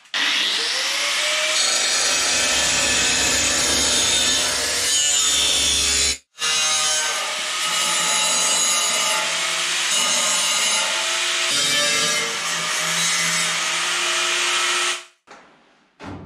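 Handheld angle grinder cutting steel parts to shape: the motor's pitch climbs as it spins up, it cuts for about six seconds, stops briefly and cuts again for about nine seconds before stopping.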